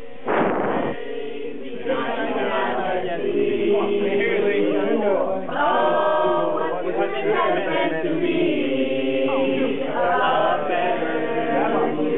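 A group of voices singing or chanting together without instruments, several notes held and overlapping. A short loud burst of noise comes just after the start.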